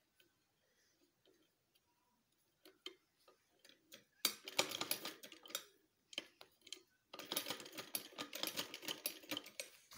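Domestic sewing machine stitching: a few scattered clicks, then a short run of rapid ticking about four seconds in, a pause, and a longer run from about seven seconds.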